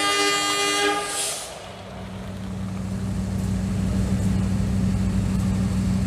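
Toy CC 206 locomotive sounding a long electronic horn, several tones held together, which cuts off about a second in. After that comes a steady low hum from the toy train running along its plastic track, slowly getting louder.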